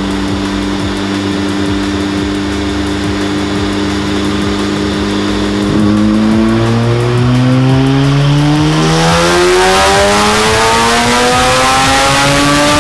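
Single-turbo 13B twin-rotor engine of a Mazda FD RX7 run on a chassis dyno. It holds a steady speed for about six seconds, then goes to full throttle and climbs steadily in pitch through the rev range, with a rushing turbo hiss building as it nears the top. This is a wheel-horsepower pull at 12 psi of boost.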